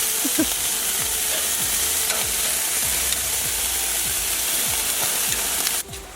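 Beef sizzling on a barbecue grill, a steady crackling hiss that cuts off suddenly near the end.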